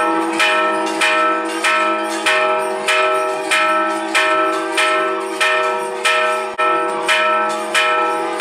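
Large temple bell struck over and over at a steady pace, about once every 0.6 seconds. Each stroke rings on into the next.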